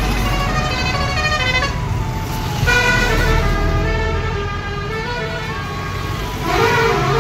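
Trucks and a pickup driving past with engines running. Over them, a horn sounds a quick stepping tune of notes in three spells, the strongest starting at about a third and near the end.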